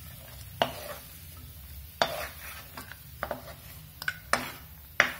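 A spatula scraping and knocking against a wok as fried cashews and raisins are scooped out of the ghee onto a steel plate. The strokes come at irregular intervals, several close together near the end.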